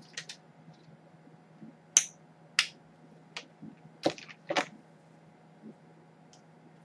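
Hands handling small items: about six short, sharp clicks and rustles spread over several seconds, the sharpest about two seconds in and again about four seconds in, over a faint steady hum.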